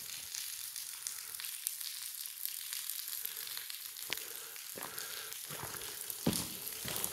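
Steady crackling hiss of falling, splashing water, with a few sharp knocks about four and six seconds in.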